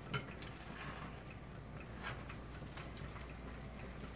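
Faint, scattered light taps and wet drips of a spoon working beaten egg over a slab of cheese in a small mixing bowl.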